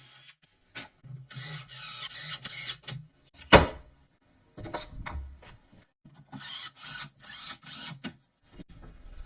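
Tool working on wood: bursts of rasping, scraping strokes a second or two long, with one sharp knock about three and a half seconds in.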